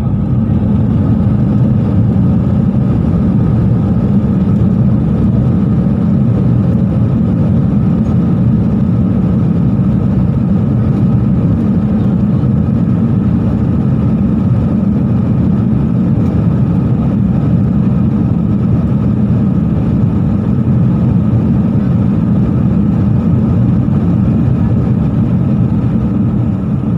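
Jet airliner heard from inside the cabin as it rolls down the runway after touchdown: a loud, steady, deep roar of engines and wheels, easing slightly near the end.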